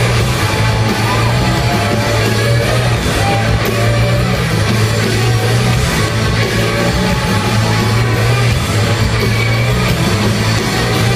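Loud live rock band playing punk-style rock with distorted guitars over a heavy, steady bass.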